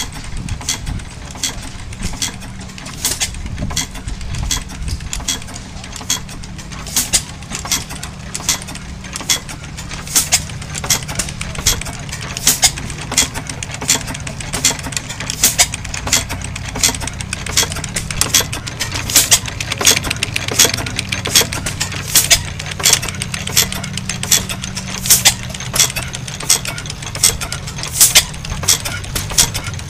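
A Springfield 2 hp hit-and-miss gas engine with fuel injection and an overhead camshaft, built around 1904, running. A low steady drone sits under a run of sharp mechanical clicks that come roughly once a second.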